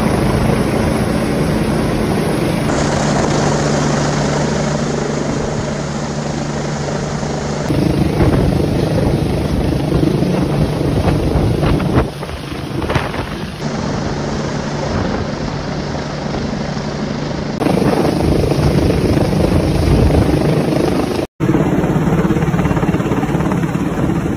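UH-60 Black Hawk military helicopters flying low overhead: loud, steady rotor and turbine noise, with the rotor downwash buffeting the phone microphone. The sound shifts abruptly several times where separate recordings are joined.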